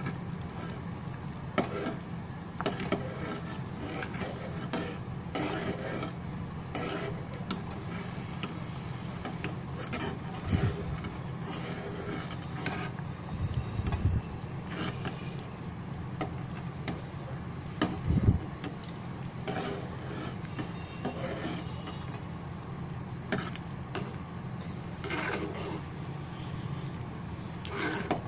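A spoon stirring milk in an aluminium pot, scraping and clicking against the metal in an irregular rhythm, with a few louder knocks about halfway through. A steady low hum runs underneath.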